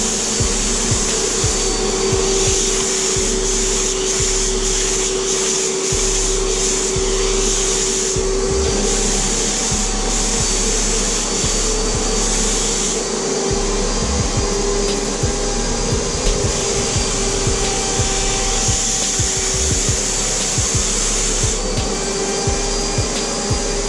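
Titan Capspray HVLP turbine running steadily with a constant whine, and the spray gun's air hissing as primer is sprayed onto the tub. The hiss swells and eases several times.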